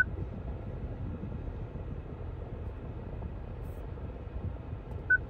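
Two short high beeps from the Mitsubishi Outlander's touchscreen infotainment unit, confirming button presses: one at the start and one about five seconds in. They sound over a steady low rumble.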